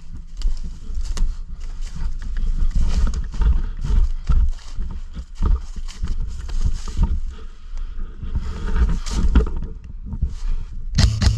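Footsteps crunching and rustling through thick dry fallen leaves, with a steady low rumble of wind and movement noise on the microphone.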